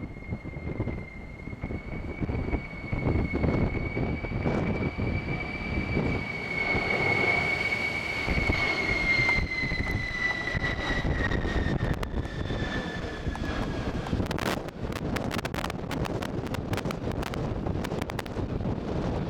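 Boeing 767 jet engines running with a high fan whine that drops in pitch and fades as the airliner moves away, over heavy wind buffeting the microphone. Gusts crackle on the microphone in the second half.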